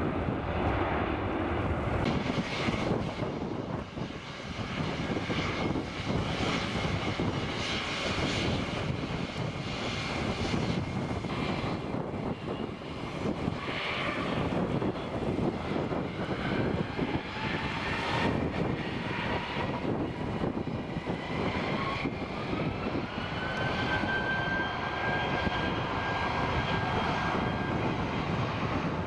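Airbus A320 jet engines running on the runway with a steady rush of noise. About two-thirds of the way through, an engine whine rises in pitch and then holds steady as the engines spool up.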